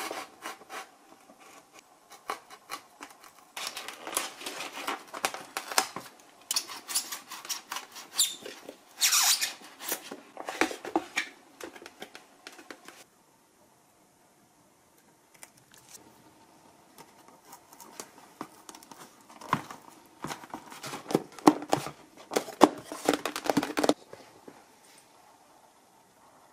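Workbench handling sounds from a foam model airplane being assembled with hand tools: irregular clicks, taps and scraping, with a near-silent pause of a couple of seconds about halfway.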